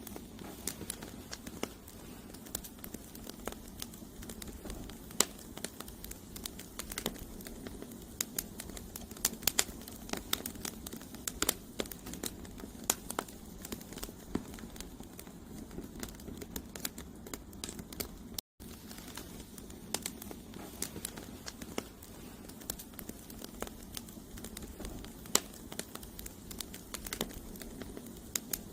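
Firewood burning in a campfire: irregular sharp pops and crackles, several a second, over a steady low rush of the flames. There is a split-second dropout about two-thirds through.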